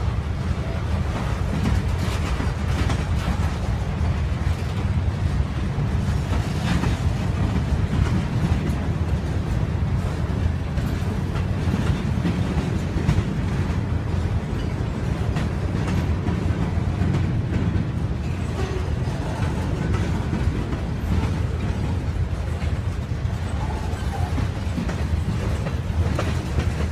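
Freight cars (covered hoppers and boxcars) of a slow-moving train rolling past: a steady low rumble of steel wheels on rail, broken by irregular clicks and clanks as wheels cross rail joints.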